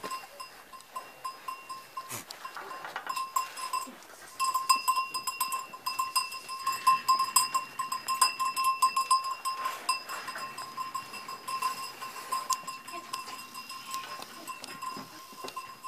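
A small goat bell jingling rapidly and almost without pause, loudest in the middle stretch, with goats bleating now and then.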